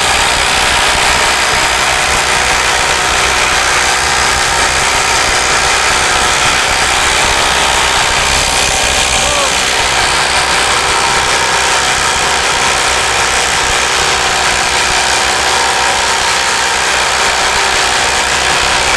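Ryobi brushless cordless impact drivers hammering continuously as they drive 10-inch, 3/4-inch lag screws into timber with no pilot hole, under heavy load. The impacts come as a steady, rapid rattle without a break.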